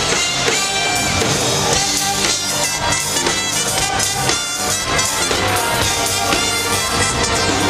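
Live band playing Jewish dance music at full volume: drum kit, electric guitar and keyboard, with a man singing into a microphone over it.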